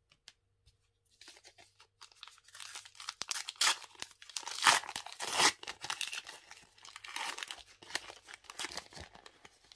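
A Topps Match Attax trading-card pack's plastic foil wrapper being torn open and crinkled by hand. The crackling starts about a second in, goes on and off, and is loudest about halfway through.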